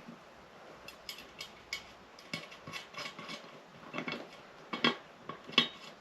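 Scattered light clicks and metallic clinks as a tyre is worked onto a motorcycle wheel rim by hand, with a sharper knock just before five seconds in.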